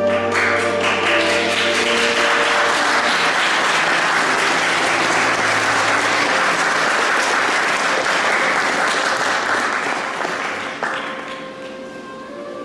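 Audience applauding over soft background music; the applause breaks out at once and dies away about ten seconds in, leaving the music.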